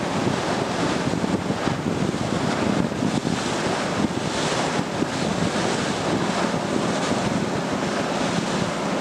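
Steady wind buffeting the microphone aboard a moving boat, over the rush of sea water and a low engine hum.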